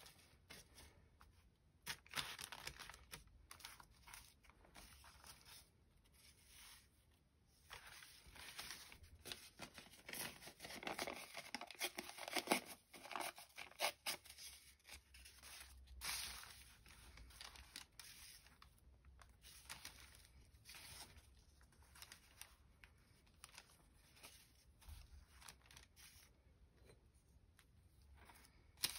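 Quiet paper handling and tearing: thin gelli-printed collage paper rustling and ripping in irregular bursts, busiest around the middle, with a few sharp clicks.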